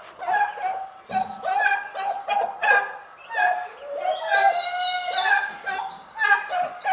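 Young turkeys peeping: a busy chorus of short, repeated pitched calls, with one longer rising call about four seconds in.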